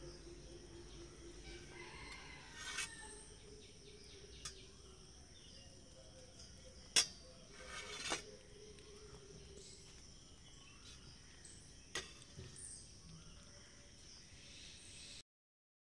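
Faint outdoor background with a steady high hiss and a few sharp clicks, the loudest about seven seconds in; the sound cuts off shortly before the end.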